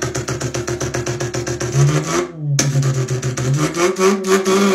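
A man imitating a Mazda RX-7's 13B twin-rotor rotary engine with his mouth. First comes a fast, even pulsing idle. After a brief break a little past two seconds, a smoother note rises in pitch like the engine revving.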